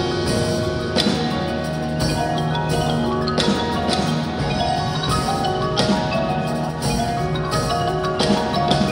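Indoor percussion ensemble playing: marimbas and other mallet keyboard instruments ring out held, pitched notes, with sharp struck accents about once a second.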